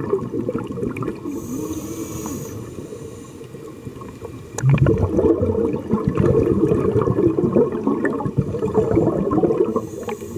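Scuba diver breathing through a regulator under water: a short hiss of inhalation, then a sudden, loud stream of exhaled bubbles gurgling for several seconds from about halfway through, and another inhalation hiss near the end.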